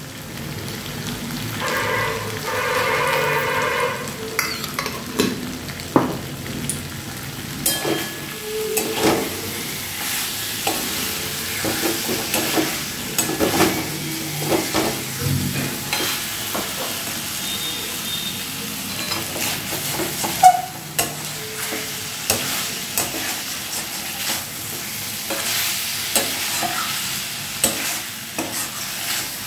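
A flat metal spatula stirring and scraping spiced potato cubes in a kadai, clicking and scraping against the metal pan many times over a steady sizzle of the potatoes frying in oil.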